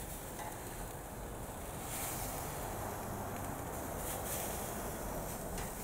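Chicken breasts sizzling on the hot grates of a gas grill: a steady hiss, with a faint click of metal tongs near the end as the pieces are turned.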